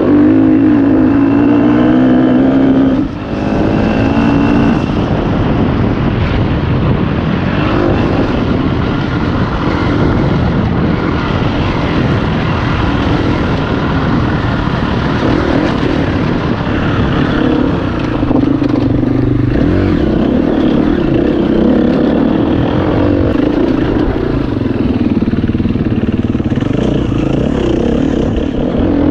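Enduro dirt bike engine being ridden hard, its revs rising and falling constantly, heard close up from the rider's helmet camera. The engine note drops briefly about three seconds in, then picks up again.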